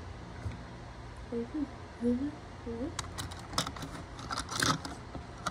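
Plastic clicks and knocks of toy TrackMaster train engines being handled and turned over, a handful of separate taps with the sharpest near the end. A few short, low voice-like sounds come between about one and three seconds in.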